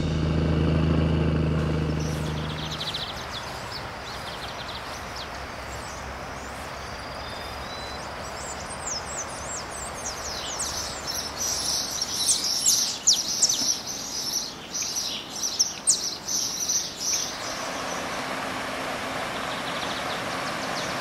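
Music fading out in the first few seconds, then many birds chirping in quick, short calls over a steady outdoor hiss. Near the end the chirping stops and the steady rushing of river rapids takes over.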